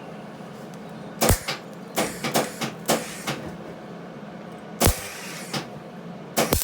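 Electric welder laying tack welds on a steel bar: short bursts of arc crackle, one about a second in, a cluster between two and three and a half seconds and one near five seconds, with a longer burst starting at the very end. A low steady hum runs underneath.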